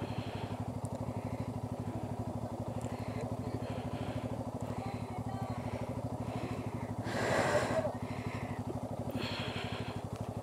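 Motorcycle engine running steadily with an even, fast pulse, and a brief louder rush of noise about seven seconds in.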